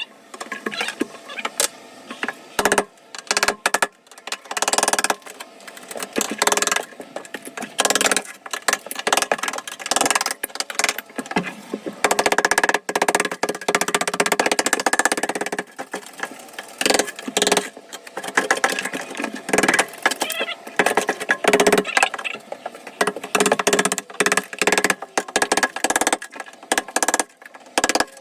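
A power tool running in irregular bursts, starting and stopping, with some runs lasting several seconds.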